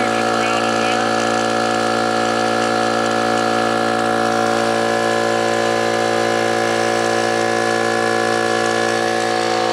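Brute oil-lubricated air compressor running steadily and pumping up its tank, a constant machine hum. This is a test run-up after the check valve was refitted.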